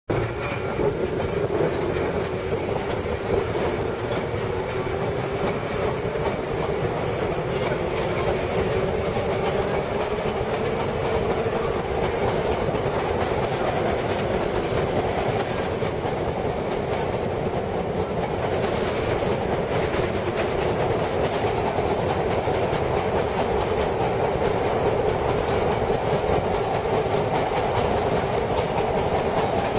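Vintage R7A 'Arnine' subway car running at high speed in a tunnel, heard from inside the car: a loud, steady clatter of wheels over rail joints, with the repeated knock of flat spots on its wheels. Under it, a hum rises slightly in pitch over the first half.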